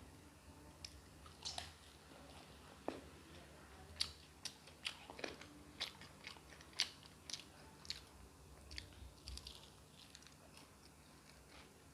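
Close-miked chewing and biting, with irregular short clicks and crunches from the mouth, several a second at times.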